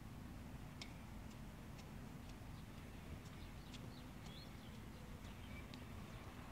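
Faint outdoor ambience: a low steady rumble and hum with scattered short, high bird chirps and ticks.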